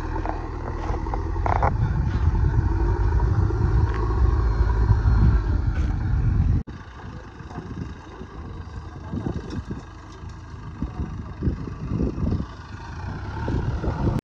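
JCB 3DX backhoe loader's diesel engine running under load with a steady low rumble. About six and a half seconds in it cuts off suddenly to a quieter engine sound, broken by irregular crackles.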